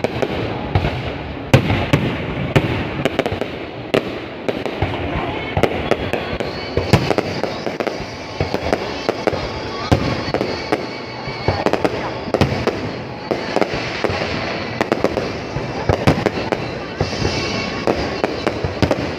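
Fireworks display going off: a dense, irregular run of sharp bangs, several a second, over a continuous crackling rumble.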